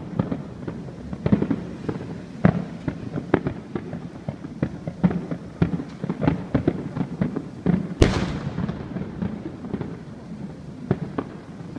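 Aerial fireworks bursting in a dense run of bangs and crackles, with the loudest bang about eight seconds in.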